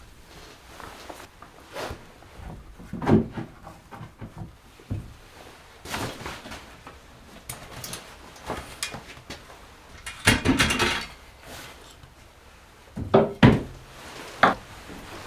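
Irregular knocks, clunks and scrapes of objects being handled, with a loud clunk about three seconds in, a longer scraping rustle around ten seconds in, and a few sharp knocks near the end.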